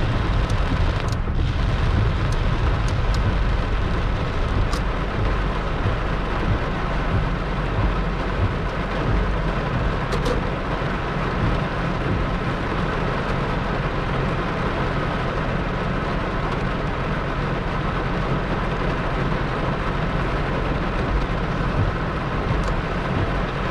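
Heavy rain pouring steadily in a thunderstorm, a dense even hiss with a steady low rumble underneath.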